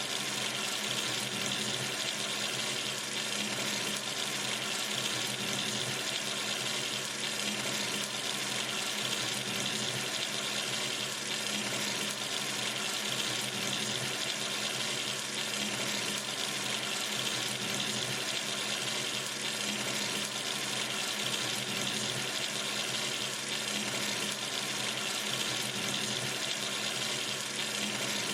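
Water running steadily from a sink tap into the basin, an even rushing splash with no change.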